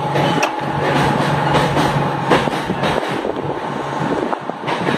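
Mumbai suburban electric local train running, heard from its open doorway: a continuous rumble and rattle of the coach, with scattered sharp clicks from the wheels and track. A steady hum underneath fades out about three seconds in.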